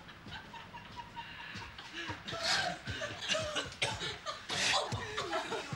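People giggling and laughing in short, breathy bursts, getting louder about two seconds in.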